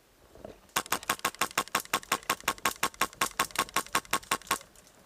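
Airsoft gun firing a fast, evenly spaced string of about two dozen shots, roughly six a second, for nearly four seconds before stopping abruptly.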